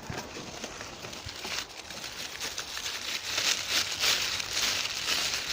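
Paper packaging rustling and crinkling as bottles are lifted out of a box, louder in the second half.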